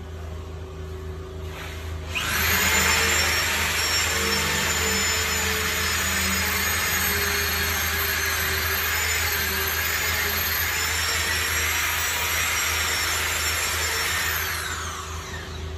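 Corded electric drill boring a 5 to 6 mm hole into a wall for screw anchors. The motor starts about two seconds in and runs steadily with a high whine for about twelve seconds, then winds down near the end.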